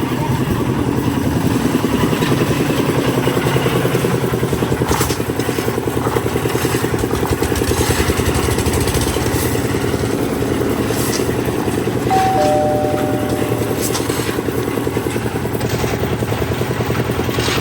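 An engine of site machinery runs steadily with a fast, even throb. Occasional knocks sound over it, and a short two-note tone comes in about twelve seconds in.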